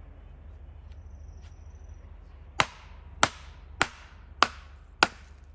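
Six sharp, evenly spaced hammer taps, a little over half a second apart, starting about halfway through, over a low steady hum. The taps are most likely on the guide-track fittings of the chainsaw mill.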